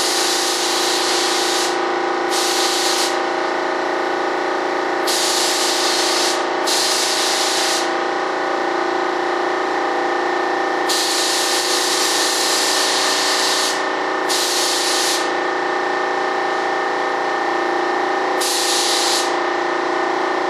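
Spray gun misting water-based PVA mold release (Partall Film #10) in about seven short trigger pulls, each a burst of hissing air from under a second to nearly three seconds long, the longest near the middle. A steady hum runs underneath.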